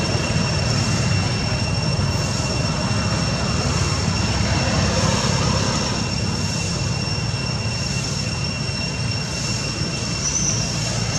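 Steady low rumble and hiss with a constant high-pitched whine over it, unchanging throughout; a short chirp near the end.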